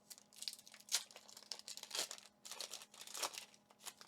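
Foil wrapper of a Pokémon booster pack crinkling and tearing open in a string of short, irregular crackles.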